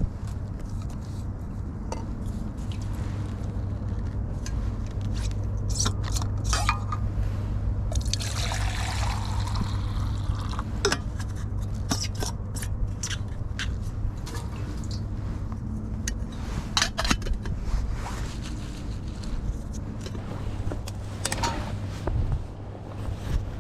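Liquid poured into a container for about two seconds, starting about eight seconds in, among scattered clinks and knocks of camp cookware. A steady low rumble runs underneath.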